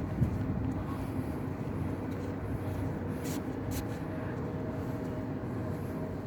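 Nissan Grand Livina's HR15DE 1.5-litre four-cylinder engine running steadily at an even, unchanging pitch. Two brief hisses come about three and four seconds in.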